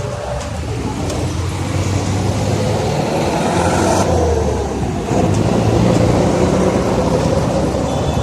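City street traffic: motor vehicles running close by with a heavy, steady engine rumble and road noise, growing louder about five seconds in.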